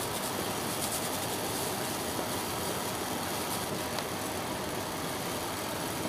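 Steady background hiss with a few faint, soft rustles of a tissue being rubbed over the small synchronous swing motor.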